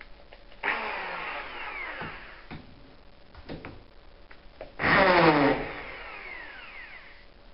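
Power drill-driver undoing bolts from the base of a washing machine, run in two short bursts, one about a second in and a louder one about five seconds in. Each time the motor whines up and then falls in pitch as it winds down.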